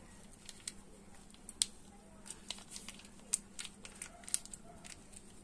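Faint, scattered crinkles and clicks of a plastic ghee sachet being squeezed over a hot aluminium pot.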